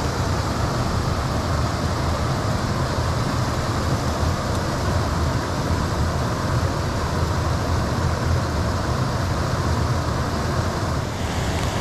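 Flowing creek water rushing steadily around the angler, an even rushing noise with a deep rumble underneath.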